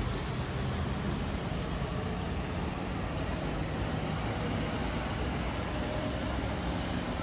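Steady city traffic on a busy roundabout: car and bus engines running and tyres rolling past, with a car passing close by at the start.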